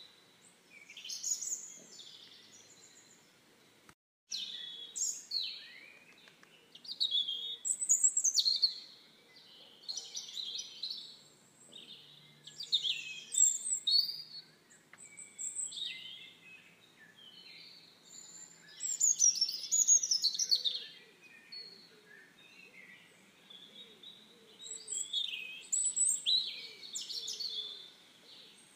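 Songbirds singing and chirping in the surrounding trees: repeated bursts of quick, high, sliding notes and trills, one after another, with short pauses between phrases. The sound drops out for a moment about four seconds in.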